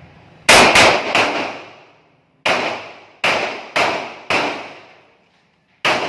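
Pistol shots, eight in all, each followed by a fading echo. Three come in quick succession about half a second in, four more follow at irregular half-second gaps from about two and a half seconds, and a single shot comes near the end.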